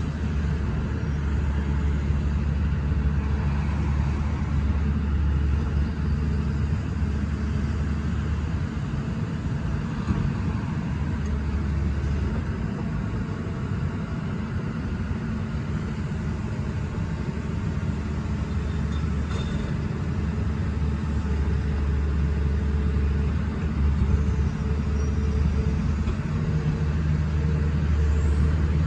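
Hyundai R210 crawler excavator's Cummins diesel engine running steadily while the boom, arm and bucket are worked through their hydraulics. The low engine note shifts slightly in pitch now and then as the hydraulics take up load.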